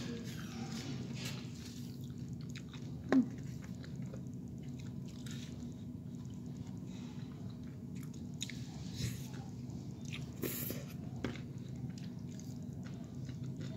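Chewing and crunching of tortilla-chip nachos, with scattered faint crunches over a steady low hum. There is one brief sharp sound about three seconds in.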